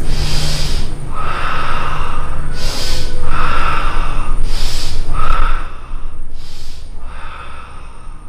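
Forced, audible karate breathing of the Sanchin kata: slow, hissing breaths drawn in and pushed out, about four breath cycles, each breath about a second long. The breathing grows quieter from about six seconds in.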